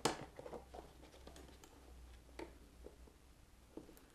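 Faint scattered clicks and rustles of gloved hands handling wiring and the plastic rear fender of a KTM SX-F 250 motocross bike, with a sharper click right at the start.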